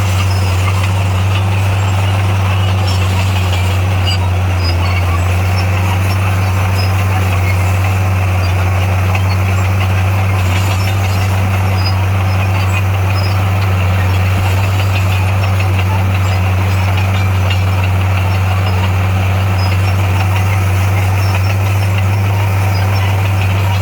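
Heavy construction-machine diesel engine running at a steady speed, a loud even drone with no change in pitch.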